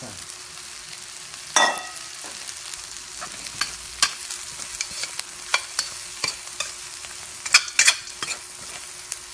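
Metal spatula scraping and knocking against a stainless steel pan while stir-frying crushed chicharon with onions and chilies, over a light frying hiss. One ringing metal clang about a second and a half in, and a run of louder scrapes near the end.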